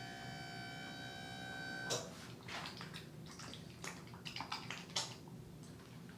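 A steady high electronic tone with overtones stops with a click about two seconds in. Then come soft, irregular wet rubbing and clicking sounds of massage on the skin of the abdomen.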